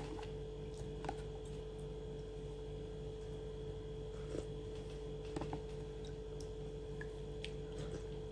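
Quiet eating: a few faint clicks and taps of a metal spoon and soft chewing, over a steady low hum.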